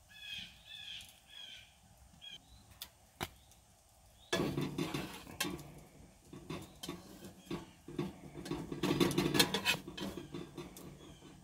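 Rustling with many small clicks and soft knocks as food is handled on a ceramic plate, beginning about four seconds in; a few short high chirps come in the first second or so.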